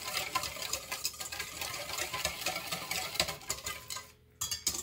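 Wire whisk beating a thin oil, soy and vinegar marinade in a stainless steel bowl: rapid swishing with the wires clicking and scraping against the metal. It stops about four seconds in.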